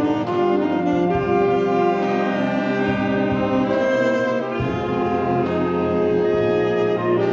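Alto saxophone playing a solo melody in held, changing notes, with a wind band accompanying underneath.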